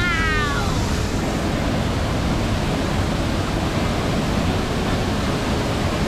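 Waterfall pouring into a rock pool: a steady, full rush of falling water. In the first second a short vocal sound slides down in pitch over it.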